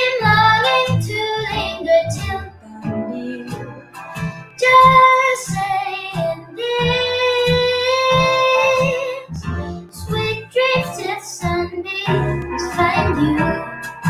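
A boy sings solo over instrumental accompaniment, holding long notes, the longest lasting about two and a half seconds near the middle.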